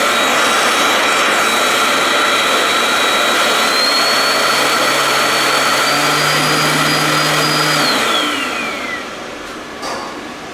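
Cold spark (cold fireworks) machine jetting: a loud, steady rushing hiss with a high motor whine that steps up in pitch twice. About eight seconds in, the whine glides down and the noise drops away as the jet stops.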